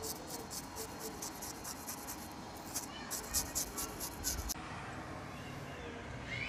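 Fingers scrubbing a snakehead fish's skin with turmeric, a quick scratchy rubbing at about five or six strokes a second, pausing briefly about two seconds in and stopping about four and a half seconds in. The rubbing strips off the fine scales and slime, which a knife cannot remove.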